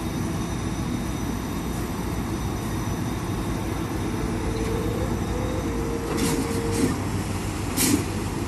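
GE C30-7PA and EMD JT26CW-2B diesel-electric locomotives running together and rolling slowly, a steady diesel engine rumble. A few short sharp noises come about six and eight seconds in.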